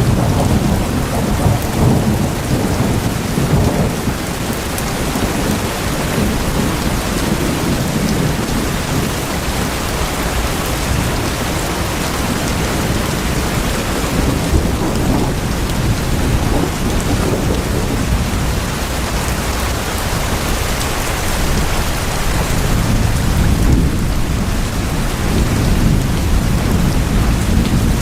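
Steady heavy rain drumming on tin roofs, a dense even patter over a deep continuous rumble.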